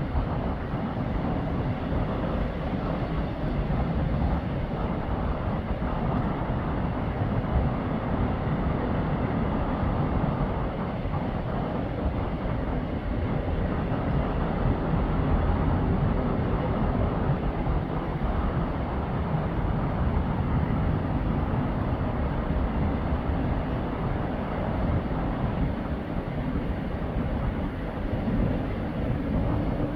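A steady low rumble of engine or traffic noise with no distinct events.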